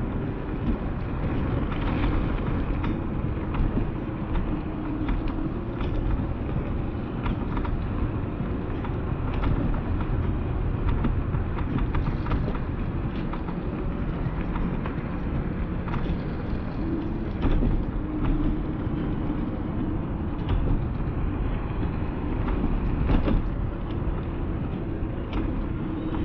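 Steady wind rush over the microphone and wheels rumbling on pavement, as the camera rides along a paved path, with scattered light clicks and rattles.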